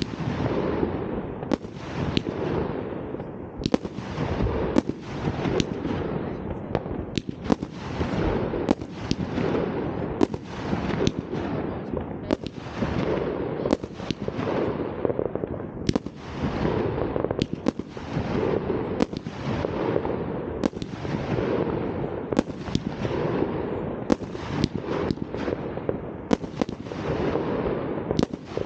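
New Year's Eve fireworks going off in a continuous barrage: a sharp bang about every second, each followed by a fading crackle and hiss.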